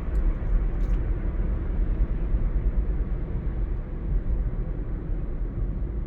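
Steady low rumble of a car on the move: engine and road noise, with no distinct events.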